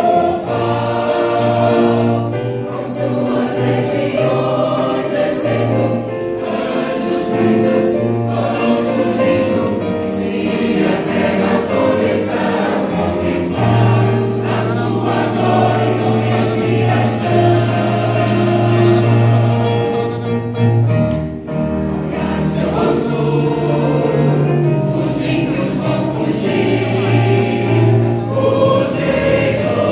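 A choir singing a Christian hymn in several voice parts, with a steady accompaniment underneath.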